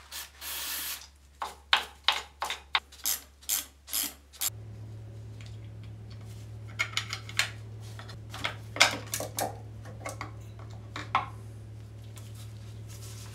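A short hiss from an aerosol spray can. Then a run of sharp metal clinks and taps as screws are undone and a steel control-panel cover is worked loose, over a low steady hum that starts about four and a half seconds in.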